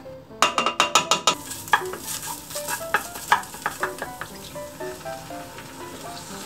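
Wooden spatula scraping curry paste out of its packet and stirring it in a hot oiled nonstick pan, with a quick run of sharp clicks about half a second in and scattered taps and scrapes after, over a light sizzle of the paste in the oil. Soft background music.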